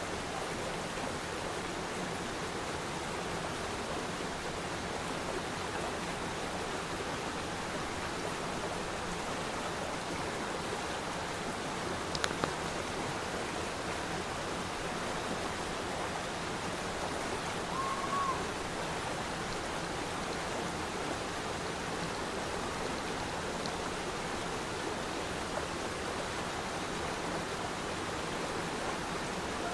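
Steady rush of falling water from a waterfall, with one sharp click about twelve seconds in.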